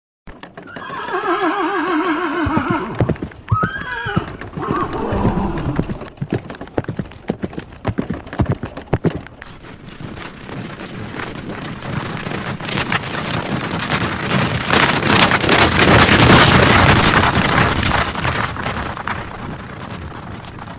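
A horse whinnies, a long quavering neigh, followed by a shorter call. Hooves then clop unevenly. Later a dense rush of hoofbeats builds louder to a peak and fades away.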